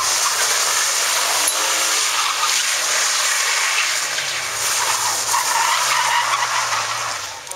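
BMW E36 3 Series sedan drifting in circles on tarmac: tyres skidding and squealing over the revving engine, easing off near the end.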